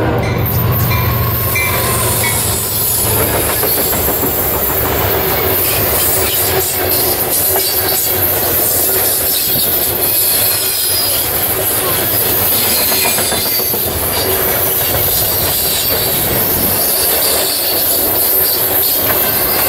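Freight train passing close by. The last of its horn cuts off at the start, and the diesel locomotive's engine goes by in the first few seconds. Then a long line of freight cars rolls past, wheels knocking over the rail joints with a steady high squeal.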